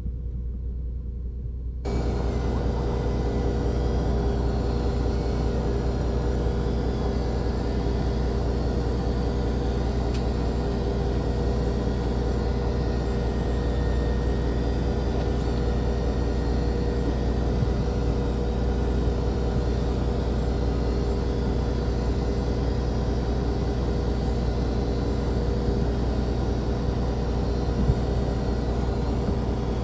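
A fishing boat's engine running steadily, a constant deep drone with a fixed hum that starts about two seconds in.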